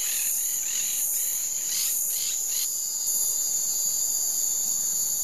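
Steady, high-pitched chorus of insects such as crickets. A second, chirping sound runs over it and stops about halfway through.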